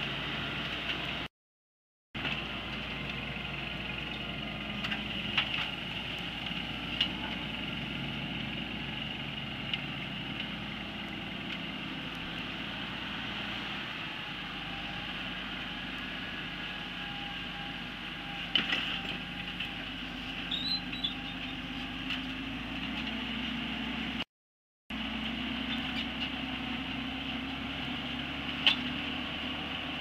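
Fendt 924 tractor's six-cylinder diesel engine running steadily as it turns and pulls a six-furrow reversible plough, with a few short clanks. The sound cuts out briefly twice.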